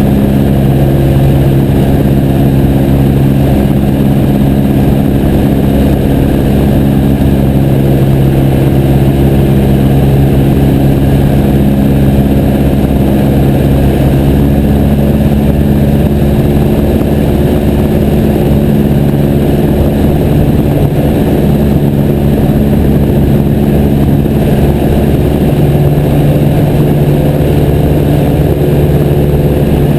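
Piper J3 Cub's piston engine and propeller running steadily and loud, close to the microphone, with a slight change in pitch about halfway through.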